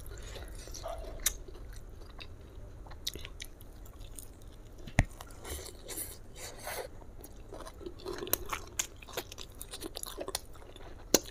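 Close-miked chewing and biting of fried chicken: irregular crunches and small clicks, with one sharp click about five seconds in and a busier run of crunches near the end.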